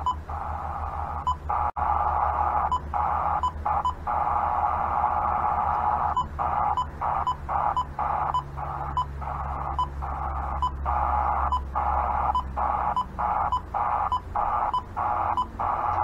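Uniden radio scanner scanning the air band: its speaker gives a steady static hiss, broken by many short dropouts with a faint blip at each. The dropouts are irregular at first and come about twice a second in the second half.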